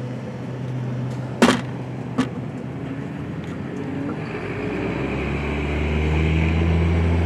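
Motorcade vehicles driving past, with engines running and tyre noise. There are two sharp knocks about a second and a half and two seconds in. A deeper engine drone builds over the last few seconds as another vehicle approaches.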